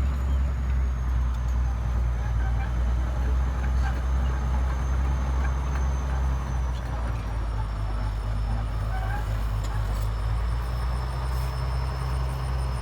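Bulldozer's diesel engine running steadily with a deep, even drone, and a faint high whine above it.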